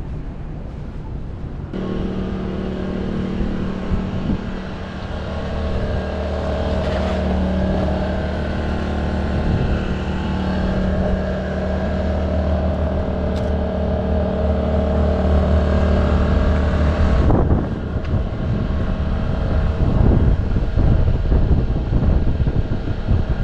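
An engine idling steadily with a low, even hum. It starts suddenly about two seconds in and cuts off suddenly after about fifteen seconds, and a rough rumbling noise takes over after it.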